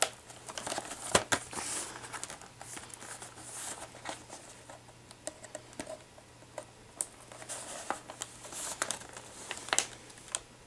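Scissors snipping into a cardboard toy box, with irregular clicks and crinkling as the packaging is cut and handled.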